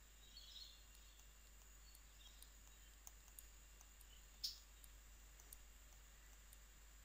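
Faint taps and light scratching of a stylus writing on a tablet screen, with one sharper tap about four and a half seconds in, over quiet room tone.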